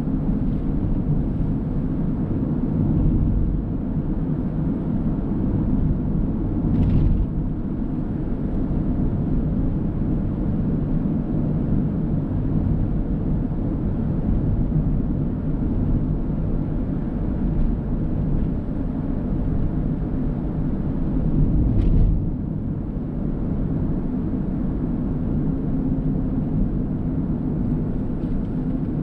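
A car driving: a steady low rumble of engine and road noise, with two brief knocks, about a quarter of the way in and again about three-quarters of the way through.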